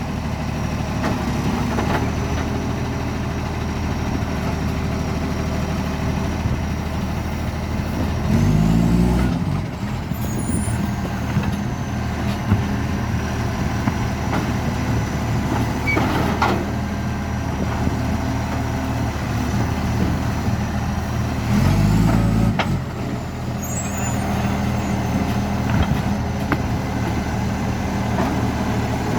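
Garbage truck's diesel engine running steadily with a very bad exhaust leak, revving up briefly twice, about a third of the way in and again near three-quarters through, with a few light knocks in between.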